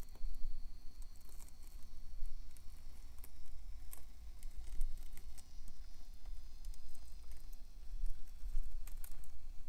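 Traxxas TRX-4M micro RC crawler with a Furitek Micro Komodo brushless motor climbing slowly over rocky steps. Scattered light clicks and crunches come from the tyres and chassis on the grit, over a faint, thin, high motor whine and a low rumble.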